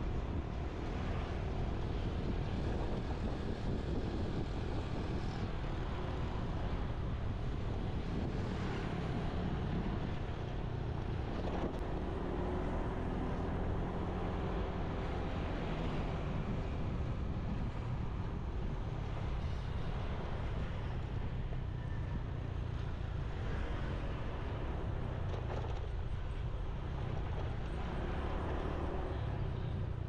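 Motorbike riding along a road in traffic: steady engine and road noise with a constant low wind rumble over the microphone.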